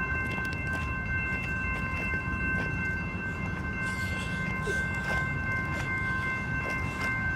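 Railroad grade-crossing warning bell ringing continuously in a steady, even tone, over a low rumble. The crossing is active with no train present, a malfunction by the railfan's own reading.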